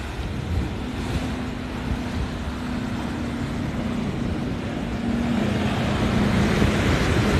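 An engine hums steadily at one slightly wavering pitch over a low rumble, with wind and surf noise growing louder near the end.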